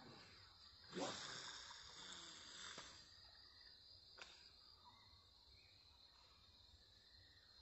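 Faint, steady high-pitched drone of insects. About a second in, a louder falling whoosh fades away over about two seconds, and a single click comes near four seconds.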